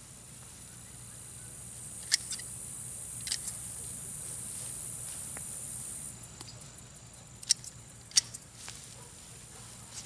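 Hands and a small metal hand tool digging through dry mulch and soil around a sweet potato hill: rustling and scratching with a few sharp crackles and snaps, the loudest about two seconds in and again around seven and a half and eight seconds.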